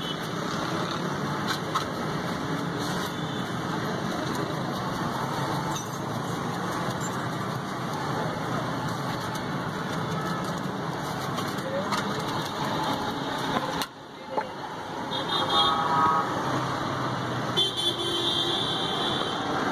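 Steady street traffic noise with background chatter, and vehicle horns honking twice in the latter part, once briefly and once for about two seconds.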